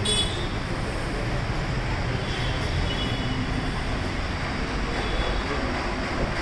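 Steady low background rumble, with faint high tones briefly near the middle.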